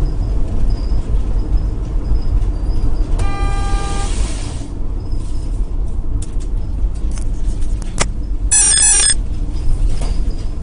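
Steady tyre and road noise inside a car driving on a wet road, broken by two short horn sounds: a clean tone about three seconds in and a harsher one near nine seconds.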